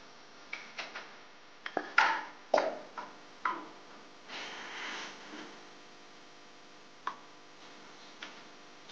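A spatula knocking and scraping against the inside of a pressure-cooker pot while stirring chicken feet in sauce. It makes a string of sharp clacks, the loudest about two seconds in and a few more over the next second and a half, then two lone ones later. A brief soft rushing sound comes around the middle.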